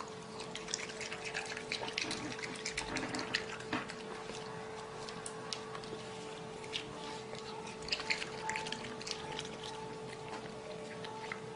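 A raccoon chewing grapes: irregular wet smacking and crunching clicks throughout, over a faint steady hum.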